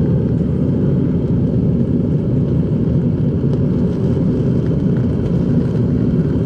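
Metal-melting furnace burner running with a steady, low rushing noise.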